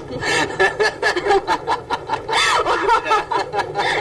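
A woman laughing, in quick repeated pulses.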